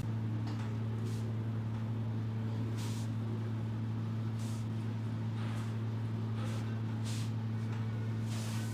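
A steady low hum at a fixed pitch, with a few brief soft rustles over it.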